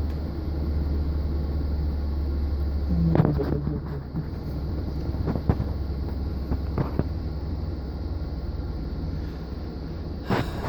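Top-load washing machine running its spin cycle as it winds down: a steady low hum that drops in level about three seconds in, with a few faint clicks.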